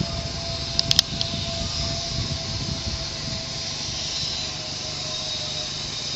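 Zipline trolley running along its steel cable: a steady whine that sinks slowly in pitch, over a hiss, with a few sharp clicks about a second in.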